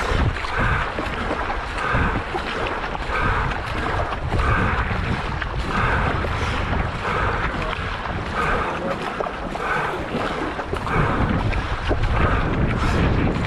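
Paddle blades splashing into the lake in a steady stroke rhythm as a racing paddle boat moves at race pace, with wind rumbling on the microphone throughout.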